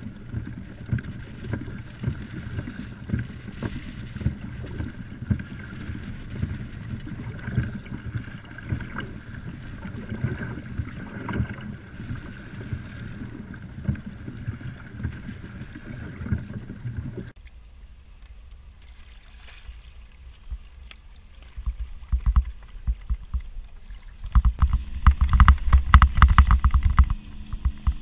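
Wind buffeting the camera microphone over choppy water slapping against a kayak hull. A little over halfway through it drops abruptly quieter, then hard gusts of wind on the microphone come back louder near the end.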